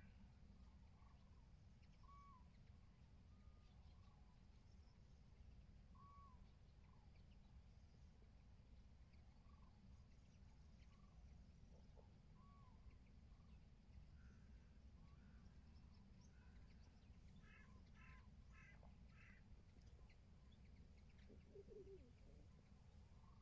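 Faint, distant common cranes calling: short bugling notes every few seconds, then a quick run of several calls about eighteen seconds in, over a low steady wind rumble.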